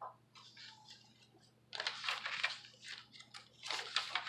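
Paper pages of a handmade journal rustling and flapping as they are turned by hand, in three short spells.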